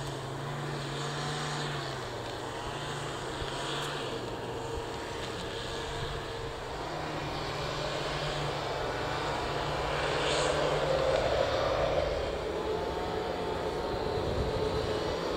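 Airbus A380's jet engines running at low taxi power: a steady whine over a low hum, growing louder about two-thirds of the way through.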